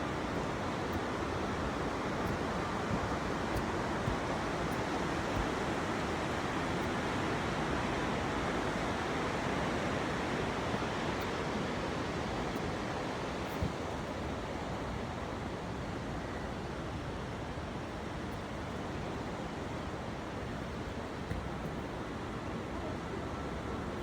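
Steady rushing noise of wind and water, as heard aboard a moving boat, with no engine tone standing out.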